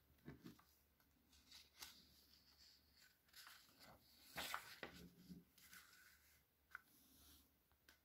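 Near silence, with faint rustles and light taps of a hardcover picture book's pages being handled and turned. The fullest rustle comes about halfway through.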